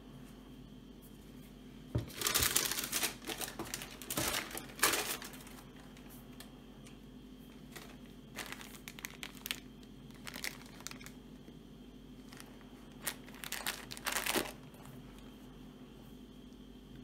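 Tissue and wrapping paper in a shoebox crinkling in several short bursts as a sneaker is lifted and handled.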